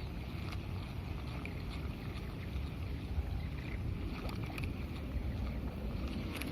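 Steady low rumble of wind on the microphone outdoors by the water, with a few faint clicks.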